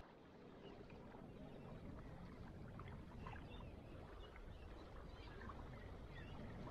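Faint lakeside ambience: small ripples lapping at a sandy, rocky shore, with scattered faint bird chirps.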